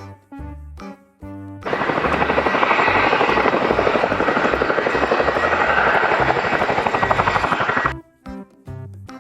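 Children's background music, broken by about six seconds of a loud, fast-pulsing mechanical whirr that starts suddenly and stops suddenly near the end.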